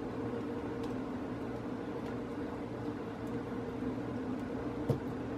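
Steady low hum of a running kitchen appliance, with a light tap about five seconds in.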